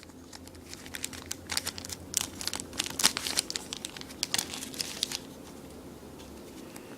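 Magic: The Gathering booster pack's foil wrapper crinkling and tearing as it is opened by hand, the crackling stopping about five seconds in.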